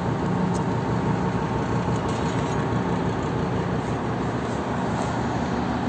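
Steady drone of a ship's running machinery, an even rumble with a low hum, unchanging throughout.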